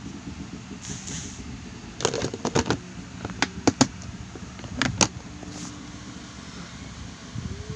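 Plastic pet enclosure being handled: a run of sharp clicks and knocks, loudest between about two and five seconds in, over a steady low rumble.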